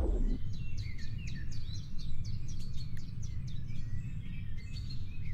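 Several small birds chirping and calling in quick, short sweeping notes, over a low rumble.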